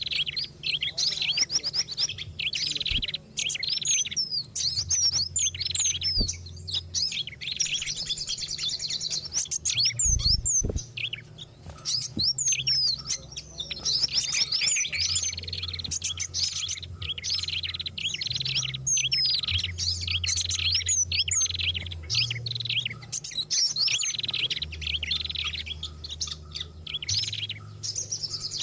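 Several small songbirds calling at once in a dense, continuous mix of quick chirps and short whistled glides, a bird-lure recording layering five species' calls. A low steady hum runs underneath and shifts in pitch every few seconds.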